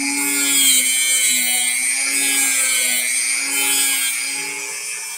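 Dremel rotary tool running at high speed with a sanding drum, grinding the small bracelet loop off a metal bee charm: a steady whine over a grinding hiss, the pitch sagging slightly as the drum bears on the metal.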